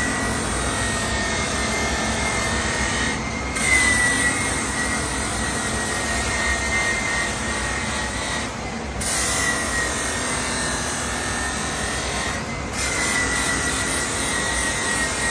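Pedestal grinder's green abrasive wheel grinding a motorcycle muffler part held against it by hand: a continuous rasping hiss with a steady whine. The hiss and whine drop out briefly three times as the piece is lifted off and set back on the wheel.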